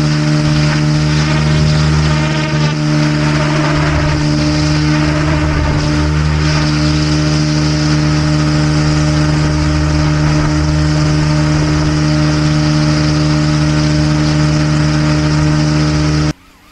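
RC AH-64 Apache model helicopter in flight, heard from its onboard camera: its motor and rotor running at a steady pitch under a rush of air noise. It cuts off suddenly near the end to a much quieter sound.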